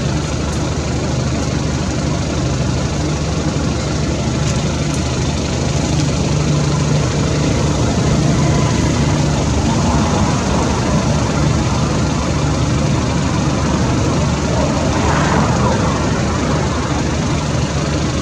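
A loud, steady engine-like drone with a constant hiss over it, unchanging throughout.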